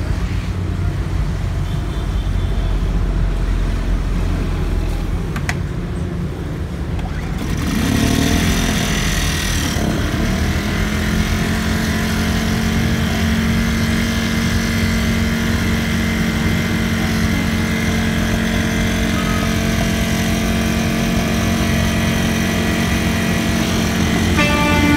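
Small Ryobi 1000 W portable generator engine running. About eight seconds in it comes up in speed with a brief rise and fall in pitch, then settles into a steady, even run.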